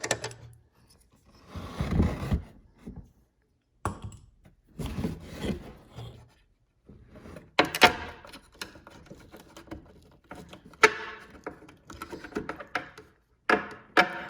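Handling and tool noises on a taillight job: a series of thunks and rubbing as a nut is worked and the light's plastic housing is moved about, with a sharp knock about eight seconds in.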